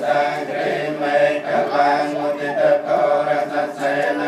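Group of Buddhist monks chanting Pali blessing verses in unison, a steady drone of long held notes.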